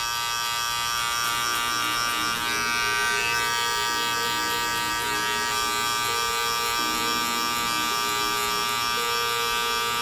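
Cordless hair clipper fitted with a one guard, lever open, buzzing steadily as it cuts short beard and sideburn hair, its hum shifting slightly in tone now and then.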